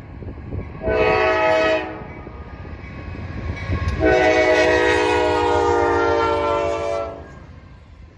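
Norfolk Southern diesel locomotive's air horn sounding a short blast, then a long one of about three seconds, several tones at once, over the low rumble of the train: the end of the horn signal for the grade crossing.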